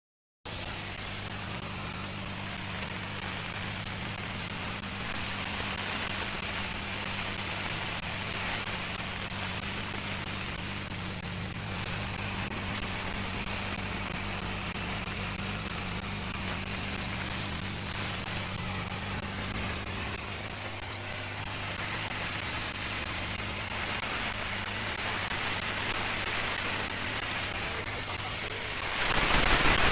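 Caldwell Cut 70GC Max plasma cutter running: a steady hiss with a low hum under it. About a second before the end the hum drops out and a louder hiss takes over.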